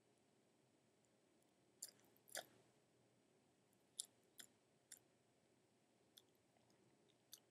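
Savannah monitor chewing a boiled egg: faint, sharp clicks and crunches of its jaws, about seven at uneven intervals.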